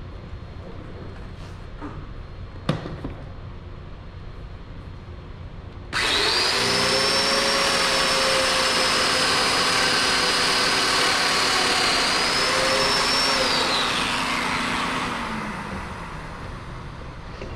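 A knock, then an electric power tool starts abruptly and runs with a steady high whine for about eight seconds before it is switched off and winds down.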